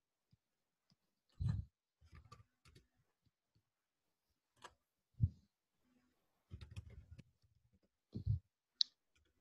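Faint, irregular clicks and dull knocks every second or two, as of a computer being handled at a desk near the microphone, with one sharper, higher click near the end.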